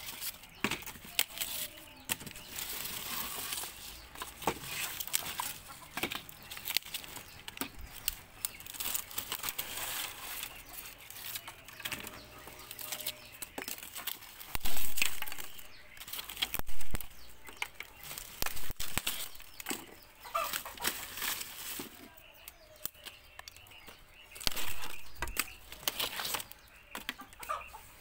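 A broody hen disturbed on her nest of eggs among a pile of dry moringa sticks: wings flapping and sticks and leaves rustling and cracking in irregular bursts, with a few short clucks. The loudest bursts come about halfway through.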